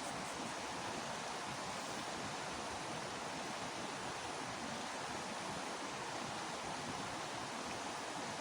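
Steady rushing of flowing stream water, an even hiss-like wash without breaks.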